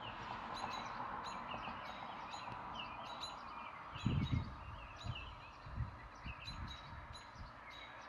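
Several songbirds, among them a Baltimore oriole, give short, sharp alarm calls over and over, a few a second, over a steady background hiss. This is mobbing commotion raised against a red-tailed hawk. A brief low rumble comes about halfway through.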